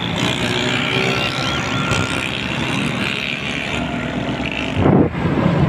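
Motorcycles and cars passing on a busy road in a dense, steady din of engines and street noise, with scattered high tones in it and a louder surge near the end.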